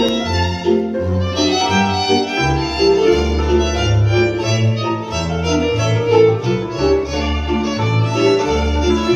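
Folk dance music led by fiddle, with a bass line stepping between notes underneath.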